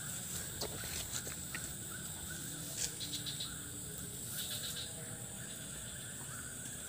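Insects buzzing steadily and frogs calling in repeated short chirps. There are a few rustles and crackles of vegetation underfoot in the first half.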